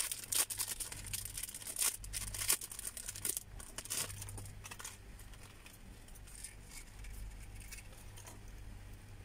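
Crinkling and rustling of small clear plastic earring packets being handled and opened by hand, busiest in the first few seconds, then sparser and fainter.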